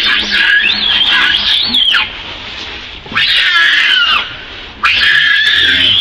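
Young pig-tailed macaque screaming: three long, loud, wavering high-pitched screams with short breaks between them, the screams of an upset, frustrated juvenile.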